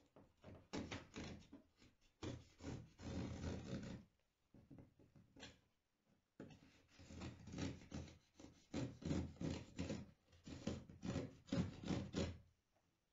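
Utility knife blade slicing and scraping along the edge of fiberglass cloth in partly cured epoxy. It comes as a run of short rasping strokes with brief pauses about four and six seconds in. The epoxy is not fully cured, so the cloth cuts easily.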